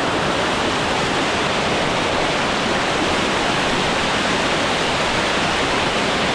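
Loud, steady rush of a cascading waterfall close to the microphone, with water pouring over rock.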